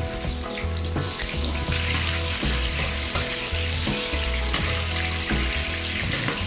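Diced carrots frying in hot oil in an aluminium wok, sizzling with a steady hiss that swells about a second in as more pieces go into the pan.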